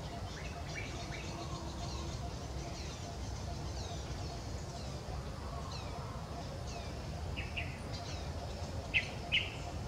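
Birds chirping in the surrounding trees, quick high descending chirps over a low steady rumble. Near the end come a few short, louder squeaky calls, the two loudest in quick succession.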